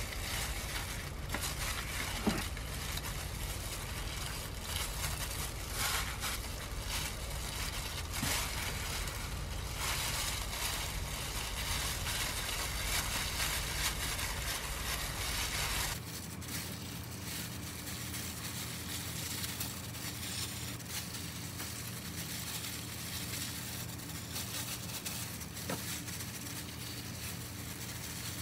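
Disposable plastic gloves crinkling and rustling as hands handle fried tofu pouches, dried seaweed sheets and soft rice filling, in scattered small rustles. A steady low hum underneath stops abruptly about halfway through.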